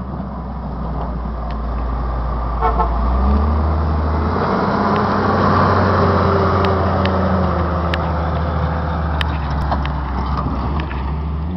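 A motor vehicle running: a steady low rumble with an even rushing noise over it.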